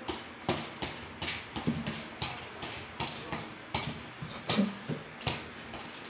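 Irregular taps and knocks of a football being dribbled with bare feet on a tiled floor, several touches a second, with the slap of feet on the tiles.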